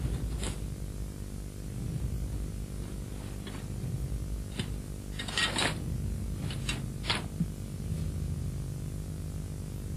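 A steady low hum, with scattered short scrapes and clicks over it; the loudest cluster comes about five and a half seconds in.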